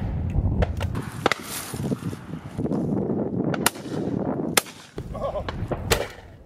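Several shotgun shots in a few seconds, the sharpest about a second in and near the end, some nearer and some further down the line. Underneath is a heavy low rumble of gale-force wind buffeting the microphone.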